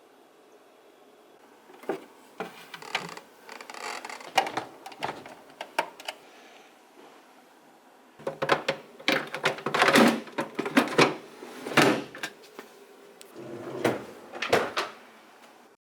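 Clicks, knocks and rattles of plastic parts being handled inside a Thetford T2095 compressor fridge, in two bursts of handling with a pause between.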